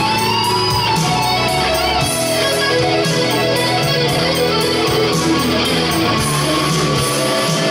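Stratocaster-style electric guitar played live through an amplifier: a lead line with bent, sliding notes over a steady low backing.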